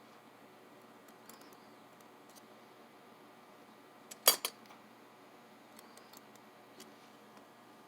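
Small hard clicks and taps from handling tiny lock pins and pinning tools while rekeying an interchangeable lock core: a few faint ticks, and one sharp double click about four seconds in.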